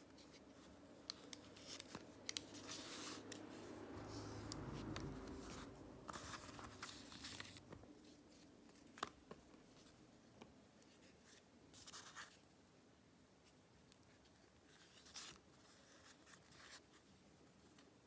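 Faint scratching as a utility-knife blade cuts through a thin sheet of clay on paper, followed by a few light clicks and short scrapes as the clay is handled.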